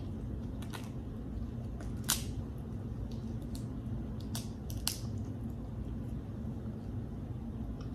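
Snow crab leg shells cracking and snapping as they are pulled apart by hand: several sharp cracks, the loudest about two seconds in, over a steady low background hum.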